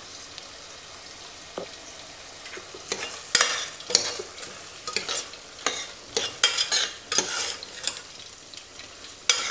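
A metal spoon stirring and scraping prawns and masala in a stainless steel pot, over a low sizzle. The sizzle runs alone at first; the scraping strokes start about three seconds in and come irregularly, several a second.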